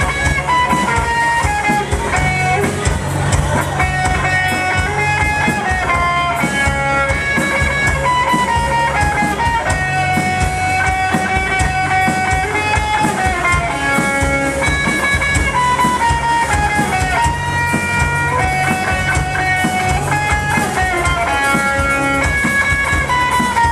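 Band playing an instrumental break: a guitar melody of held, bending notes over rhythm guitar and a steady drum kit beat.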